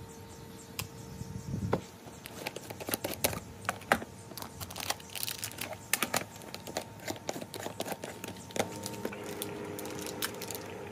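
Plastic wrappers crinkling and rustling as an individually wrapped hookah tip is handled and torn open, mixed with clicks of a plastic jar and lid being handled. The crinkles and clicks come thick and irregular through the middle and thin out near the end.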